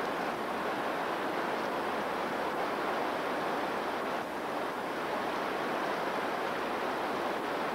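Steady rushing of lake waves washing on the shore, with no distinct breaks or impacts.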